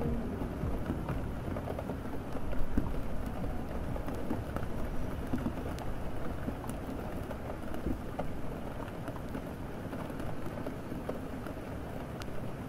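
Steady rain falling, with a low rumble beneath it and scattered faint clicks.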